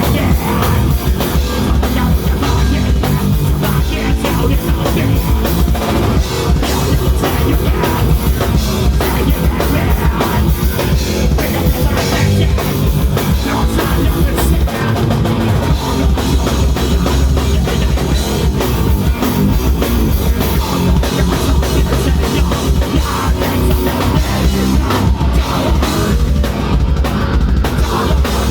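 Loud heavy rock music driven by a pounding drum kit and bass drum, playing without a break.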